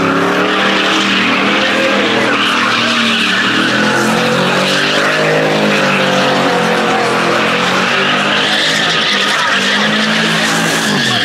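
SUV doing donuts: the engine is held at high revs, its pitch wavering up and down as the throttle is worked, and the spinning rear tires screech continuously.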